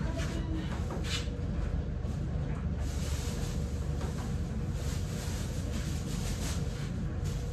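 Clothes rustling and being handled, with a few light knocks, over a steady low rumble.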